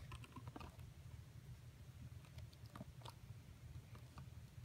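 Near silence: low room hum with a few faint small clicks, and one sharper click at the very end.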